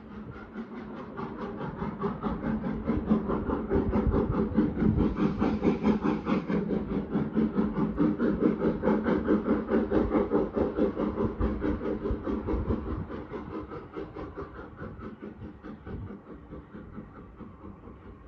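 Steam locomotive working hard with a train of coaches, its exhaust chuffing in a fast, even beat. The chuffing grows louder over the first few seconds, then fades away through the second half.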